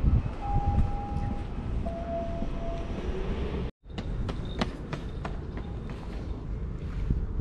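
City street ambience: a steady low rumble of traffic, with two short steady tones in the first half. After an abrupt cut about halfway through, a few sharp clicks or taps over the same rumble.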